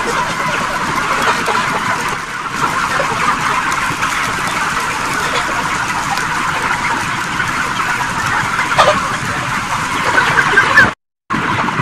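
A shed full of broiler chickens calling at once, many birds clucking and peeping in a steady, dense chatter. Near the end the sound drops out completely for a moment.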